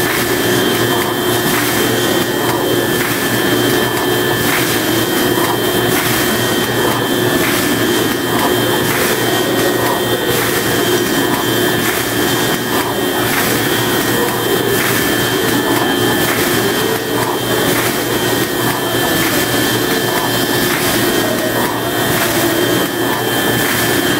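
Plastic bag-making machine with a wicketer running continuously: a steady mechanical hum and hiss with a regular click a little more than once a second.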